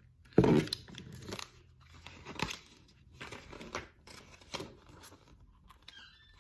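Paper rustling as pages of a tarot deck's guidebook are handled and turned, a short swish about once a second, the loudest about half a second in.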